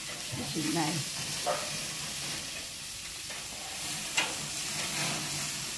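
Burger patties and ribs sizzling on the grates of a Char-Broil gas grill, a steady hiss, with one sharp click about four seconds in.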